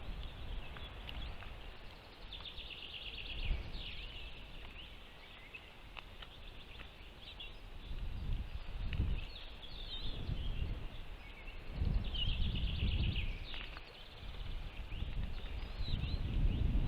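Small birds chirping, with a few short rapid trills, over surges of low rumbling noise.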